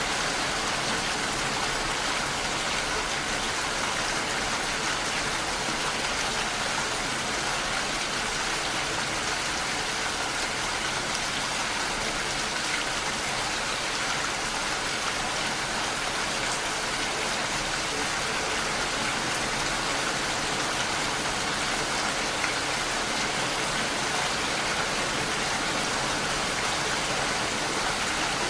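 Steady rain falling, a dense, even hiss of drops with no let-up.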